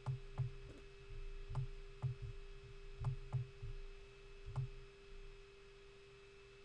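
Faint clicks and soft knocks of a computer mouse being clicked and dragged on a desk, about seven scattered over the first five seconds, over a steady hum.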